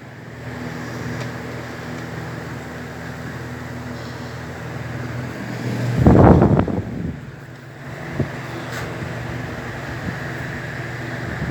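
Eletromar Westinghouse desk fan running with a steady motor hum and the rush of its blades. About six seconds in, a loud gust of its airflow buffets the microphone for about a second.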